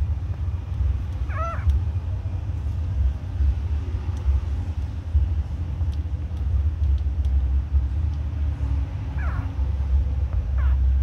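Newborn puppies giving short, high, mewing squeaks: once about a second and a half in and twice near the end. Under them runs a steady low rumble.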